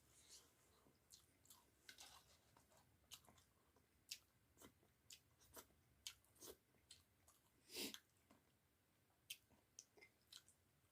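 Faint chewing of rice and bamboo-shoot and potato curry, with irregular soft wet mouth clicks and one louder click about eight seconds in.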